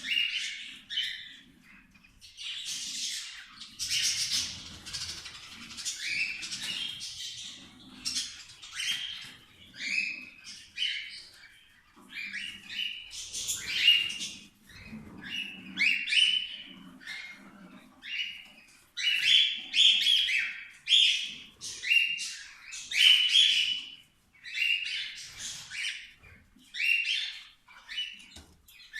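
Several cockatiels chirping and squawking in short, overlapping calls, almost without pause.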